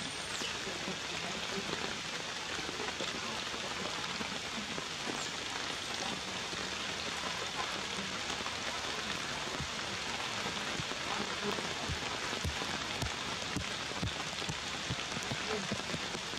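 Steady hiss of rain falling, with scattered soft taps of drops.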